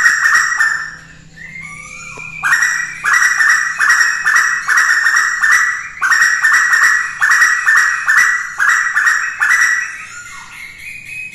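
Female Asian koel calling, the call used as a lure for koels. It is a long run of short, loud repeated notes, about two a second, with a brief pause about a second in and again near the end.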